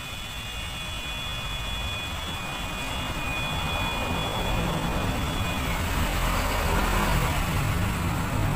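Steady engine-like rumble with broad noise that grows louder over the second half, and faint thin high tones that fade out about halfway through.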